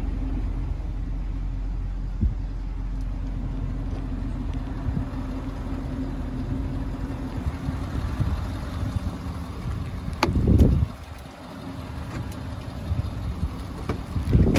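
Ford 6.7L Power Stroke V8 turbodiesel idling steadily, heard from in and around the cab. A door shuts with a heavy thud about ten seconds in, after which the engine sounds more muffled, and another door clunks near the end.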